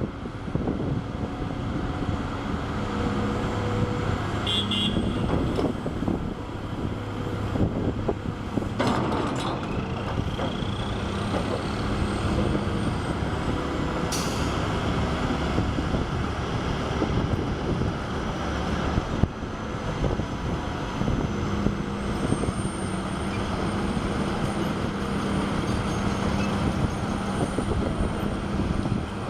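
Heavy diesel construction machinery, an excavator among it, running steadily with a low drone. Two sharp knocks come through partway in.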